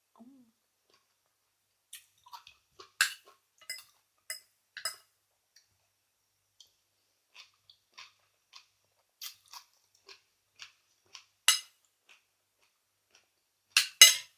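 Close-up chewing and mouth clicks of a person eating raw oysters, in short scattered smacks, with a few sharper clinks near the end.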